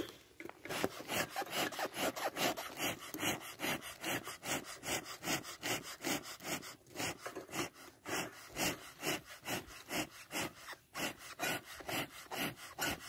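Bee smoker's bellows pumped rapidly and evenly, each squeeze a short puff of air, several a second with a few brief pauses, fanning the fire to get the wood pellets burning.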